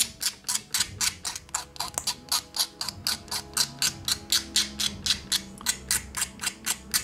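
A sanding stick rubbed quickly back and forth along the cut edges of a small plastic-card (styrene) piece, smoothing them: an even run of short scratchy strokes, about four a second.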